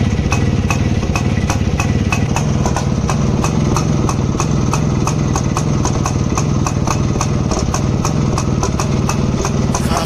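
Rajdoot motorcycle's two-stroke single-cylinder engine idling steadily, with sharp ticks about four times a second.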